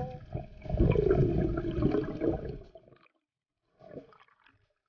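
Muffled underwater water noise, rushing and gurgling against the camera housing as the diver swims up. It cuts off about three seconds in.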